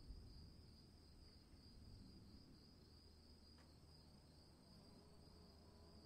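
Faint, steady high-pitched trilling of crickets over a low rumble, part of a storm ambience.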